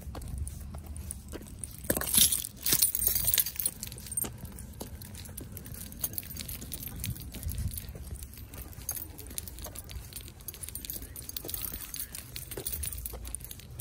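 Keys jangling as they swing with each step of a person walking in boots on asphalt, with light footstep clicks; the jangling is loudest about two to three and a half seconds in.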